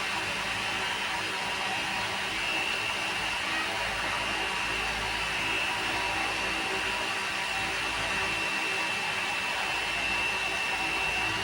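A steady blower-type whoosh from a small motor, with a thin, constant high whine running through it.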